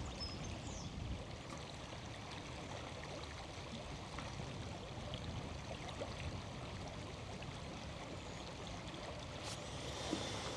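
Small river flowing, a steady, even rush of running water.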